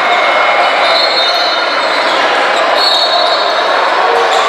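Gym during a basketball game: a steady din of crowd voices and shouting, echoing in the hall.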